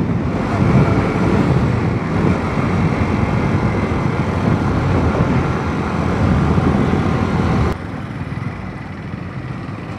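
Motorcycle being ridden, with its engine and wind noise loud on the bike-mounted microphone. About three-quarters of the way in the sound drops suddenly to a quieter, steady road-traffic hum.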